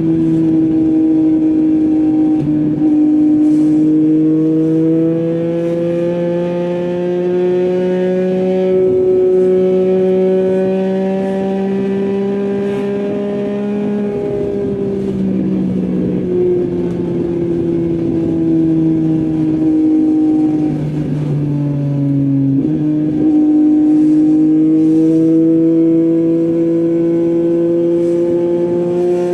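Yamaha MT-09's 890 cc inline-three running through an Akrapovic full-system exhaust while riding. The engine note climbs and eases off over and over, with sudden steps in pitch at several gear changes, about a dozen seconds apart.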